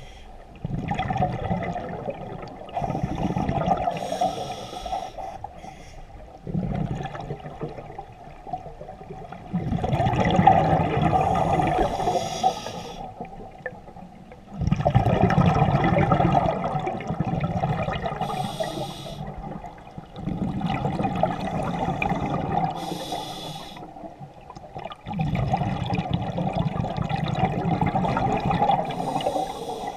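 Scuba diver breathing through a regulator underwater: repeated surges of exhaled bubbles gurgling and rushing, a breath every four to five seconds, with a short hiss of inhalation between some of them.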